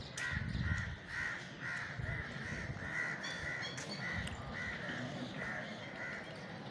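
Crows cawing in a long run of short caws, about two or three a second, stopping shortly before the end. A low rumble comes about half a second in.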